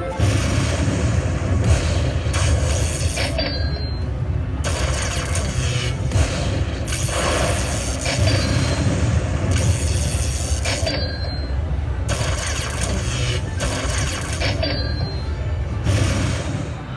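Aristocrat Lightning Link slot machine playing its bonus-win sound effects through the cabinet speakers as the win total counts up: a deep, steady rumble with noisy swells that shift every second or two.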